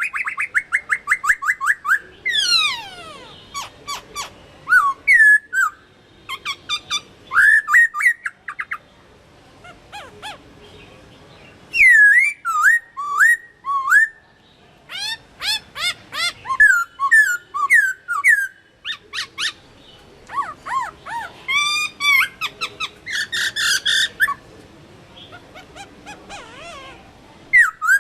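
Chinese hwamei singing: loud, varied whistled phrases, many notes repeated in quick runs and slurring up and down, coming in bursts with short pauses between them.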